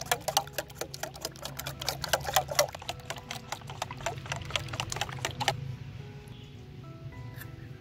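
A metal spoon beating eggs in a stainless steel bowl, clicking rapidly against the metal; the clicking stops about five and a half seconds in.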